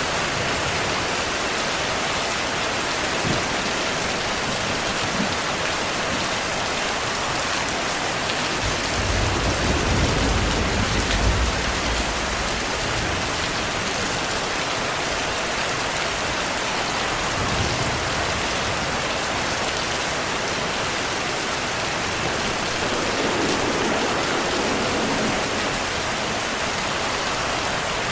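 Steady heavy rain falling on a surface. A low rumble of distant thunder comes in about eight seconds in and lasts a few seconds, and a fainter rumble follows near the end.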